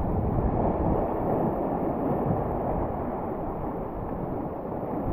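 Steady wind rumble on the microphone, mixed with small waves washing onto the shore.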